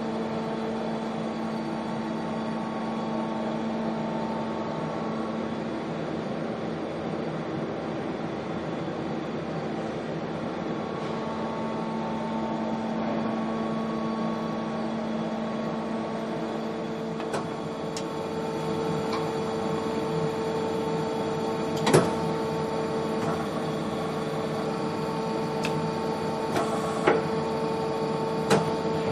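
Steady machine hum of a Mazak Super QT 10 M CNC turning and milling center standing powered up, with a few sharp clicks in the second half, the loudest about 22 seconds in.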